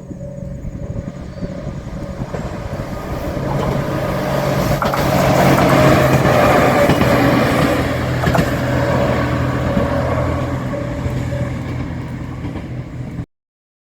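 A JR Shikoku 2700 series diesel railcar passing, its diesel engines humming under the rush of the train. It builds to its loudest about six seconds in, then fades, and cuts off abruptly near the end.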